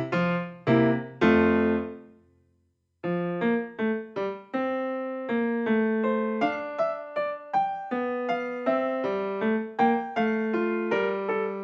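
Background piano or electric piano music: a run of separate struck notes that fades out about two seconds in, stops for about a second, then starts again with a steady stream of notes.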